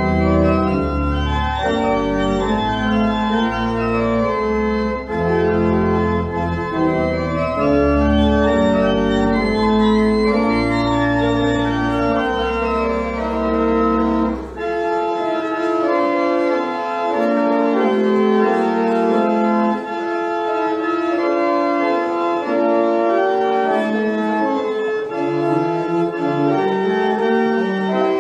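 Organ playing a postlude in held chords with deep pedal bass notes; the bass drops out about halfway through and the upper chords carry on.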